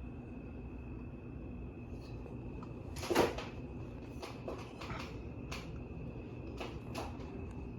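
Harbor Breeze Springfield ceiling fan running with a steady hum and a faint high whine; the fan has a bad capacitor. A sharp knock comes about three seconds in, followed by several lighter clicks.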